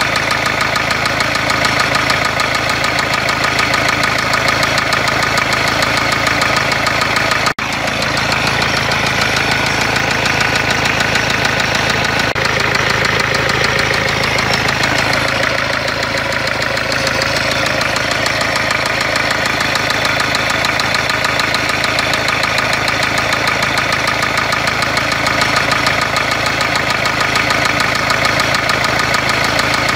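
Renault Kangoo 1.5 dCi four-cylinder diesel engine running with a steady, rapid knocking heard close over the injectors, a noise the title puts down to a blown engine.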